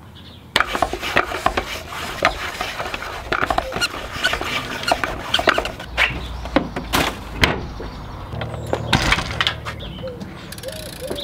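Rubber squeaking and handling noises from working a road bike inner tube and tyre by hand: irregular scrapes, rubs and knocks. A plastic wheelie bin lid clatters about six seconds in.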